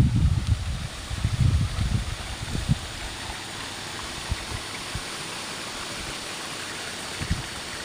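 Steady rush of flowing water, with a few low rumbling thumps in the first three seconds.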